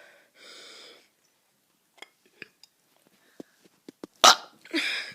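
A child's forced burp about four seconds in: a sudden loud onset, then a short rasp. Before it comes a faint breathy sound, then a few small clicks.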